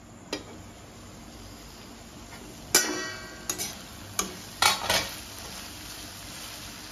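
Chopped tomatoes and onions sizzling steadily in hot oil in a metal kadai. A slotted metal spatula scrapes and clanks against the pan about seven times, the loudest clank about three seconds in and ringing briefly.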